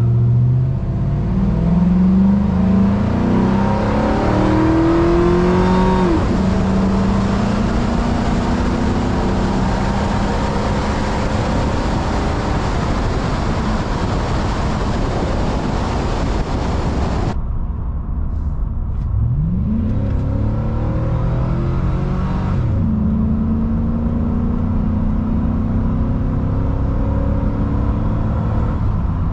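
2006 Chevy Silverado's 5.3-litre V8 accelerating hard on its stock air intake, the engine note climbing and then dropping at each upshift. About two-thirds of the way through, the hiss above the engine cuts off abruptly and the engine climbs through the gears again.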